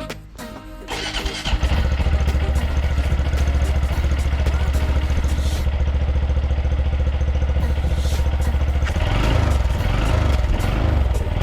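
Honda Monkey 125's air-cooled single-cylinder engine catching about a second and a half in, then idling steadily through a Yoshimura GP-MAGNUM down-type exhaust with a stainless silencer.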